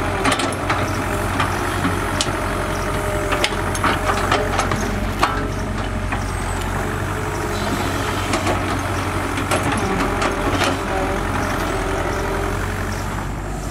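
Caterpillar E120B excavator's diesel engine running steadily while it works in wet mud, with several sharp clanks and knocks from the bucket and arm scattered over the engine sound.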